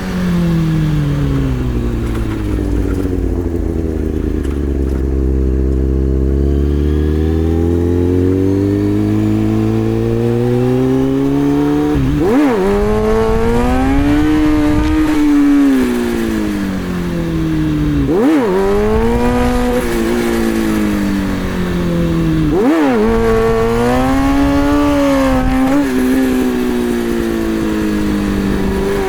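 2003 Kawasaki ZX-636 inline-four engine pulling in first gear: its note sinks for several seconds, then climbs again. Three sharp rev blips come about six and then four seconds apart, each followed by the engine held and wavering at high revs.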